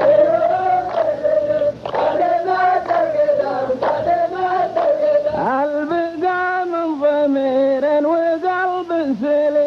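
A group of men chanting a verse in unison in long, drawn-out notes: the chorus line of a Saudi qalta poetic duel repeating the poet's verse. A new phrase starts about five seconds in.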